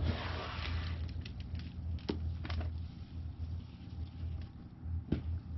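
A gloved hand rummaging through damp worm castings in a plastic worm bin: soft rustling and crumbling, loudest at the start, with a few short sharp clicks, over a low steady hum.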